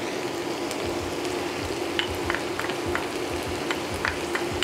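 Ground chicken and shredded cabbage-and-carrot slaw sizzling in a hot nonstick skillet, with scattered small pops and crackles over a steady low hum.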